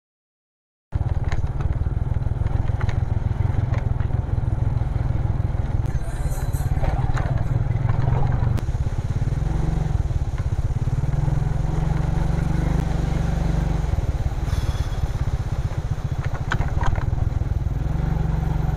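Motorcycle riding over a rough, rocky road: a steady low rumble from the engine and wind on the microphone, with scattered clatters and knocks. It starts suddenly about a second in.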